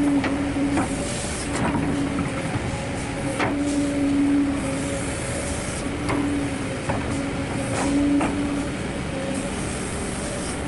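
Kobelco hydraulic excavator running while it swings and moves its boom and bucket: a steady engine noise with a low hum that swells and fades several times as the hydraulics take load. Scattered sharp metallic clanks are heard throughout.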